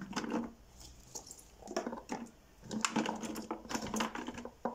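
Thin green peppers being pushed by hand into a clear plastic jar: irregular rustling, crinkling and light clicks of the peppers and the plastic, in a few clusters, the busiest from about three seconds in.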